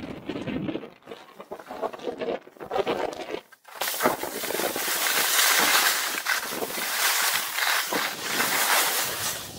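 Skis sliding on groomed, packed snow at speed: an uneven scraping at first, then a loud, steady hiss of the edges carving from about four seconds in.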